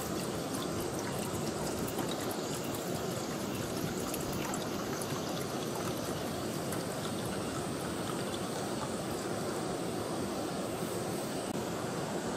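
Water poured from a Stanley bottle into an aluminium Trangia Mini pot, splashing and trickling into the pot, over a steady rushing background.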